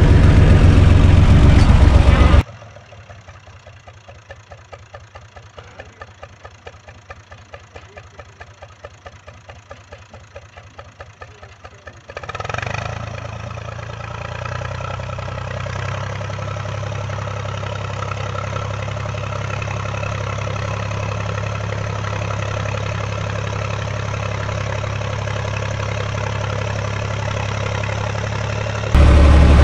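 UTB Universal 445 tractor's three-cylinder diesel engine running while pulling a rotary tiller through garden soil. It is loud at the start and end, as heard inside the cab; in between it is faint with an even knock of about four beats a second, then grows louder about twelve seconds in and runs steadily.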